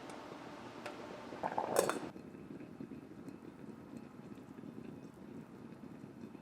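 Kitchenware clinking: a few light clicks, then a quick cluster of clinks about one and a half to two seconds in, followed by a steady low hiss.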